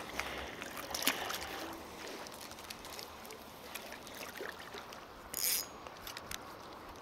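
Gentle estuary water lapping at the shore, with a small splash and handling noises near the start as a small seabass is dropped back into the shallows. A few light clicks follow, and a brief high hiss about five and a half seconds in.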